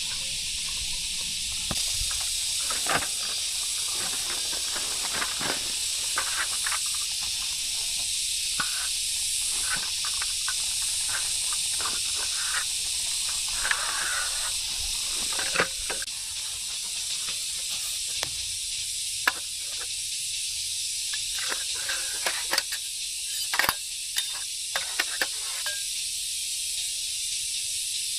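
Steady high-pitched hiss with many light clicks and knocks scattered through it, thickest in the middle and again near the end.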